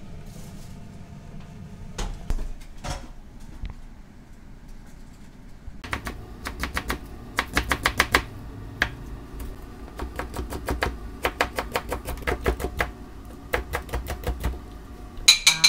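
Kitchen knife chopping and slicing vegetables (radish, carrot, chili) on a plastic cutting board: quick runs of sharp taps, several a second, broken by short pauses. A few scattered knocks in the first seconds, and a short ringing clink near the end, the loudest sound.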